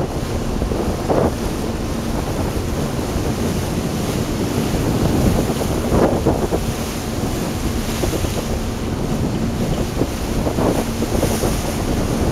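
Wind buffeting the microphone in irregular gusts over a steady rushing noise of open water.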